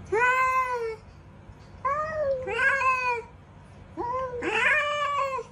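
Domestic cat meowing loudly, five drawn-out meows: one at the start, then two in quick succession mid-way and two more near the end.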